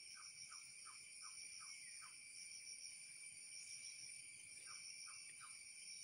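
Faint, steady high-pitched insect chorus of crickets or cicadas, with a run of short falling chirps: six over the first two seconds and three more near the end.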